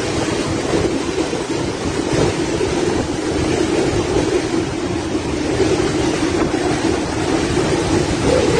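Steady, loud rushing noise of typhoon wind and water, unbroken.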